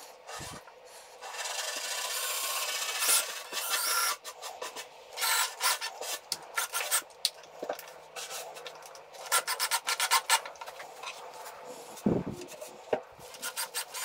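Cordless drill driving screws through a wooden cleat into a plywood panel: one steady run of about two seconds, then several shorter stop-start bursts.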